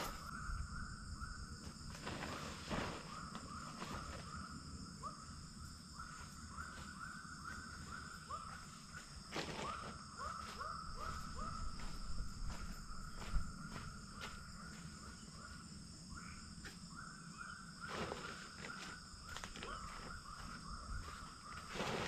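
Rainforest insects holding steady high-pitched drones, with runs of quick, repeated chirping calls that come and go, and scattered rustles and knocks from someone working at a tent.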